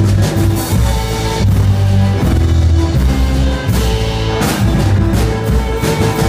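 Live folk-country band playing an instrumental passage: strummed acoustic guitar, electric guitar, fiddle, upright bass and a drum kit keeping a steady beat.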